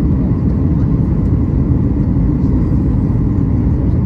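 Steady low rumble of a jet airliner in flight, heard inside the cabin: engine and airflow noise.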